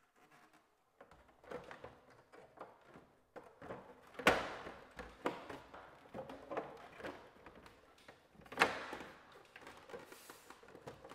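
Plastic panel parts of a wall-mounted ductless mini-split indoor unit being handled and pressed into place: scattered light clicks and knocks, with two sharper knocks about four seconds apart.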